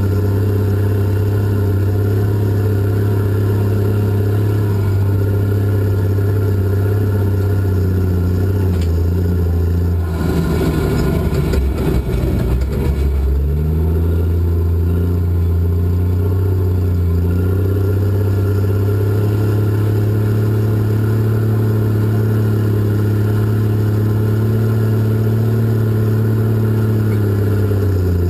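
Cat 627 scraper's diesel engine running loud and steady, heard from inside the cab. About ten seconds in the engine speed sags and the sound turns rough for a few seconds, then the engine climbs back up to a steady pitch.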